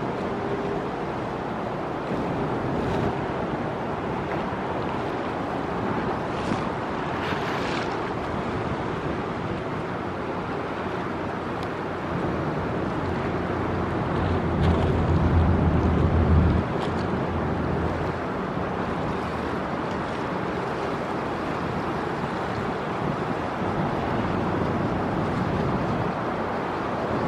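Low, steady rumble of the Ro-Ro passenger ferry Ritsurin No. 2 manoeuvring off its berth, heard across open water with wind noise on the microphone. The rumble grows louder for about two seconds past the middle, then drops back sharply.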